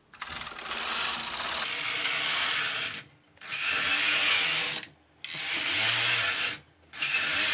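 Carriage of a Brother KH260 knitting machine pushed back and forth across the needle bed, knitting plain stockinette rows. It makes four passes of steady mechanical clatter, the first about three seconds long and the others shorter, with brief stops as it changes direction.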